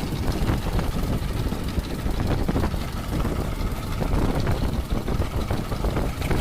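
Fishing boat's engine running steadily, a low rumble.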